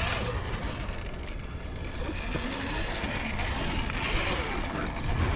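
Whirring electric motor and gear drivetrain of a radio-controlled scale rock crawler, its pitch rising and falling as it is driven, over a steady low rumble.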